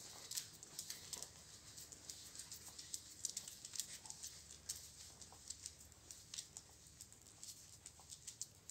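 Footsteps and a dog's claws clicking on stone paving: quick, irregular, faint clicks.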